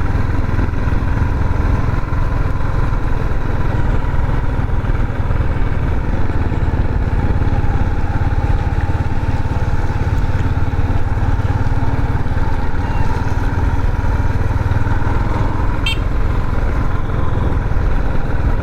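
Motorcycle engine running steadily while riding, heard as a constant low rumble. A brief run of light ticks comes near the end.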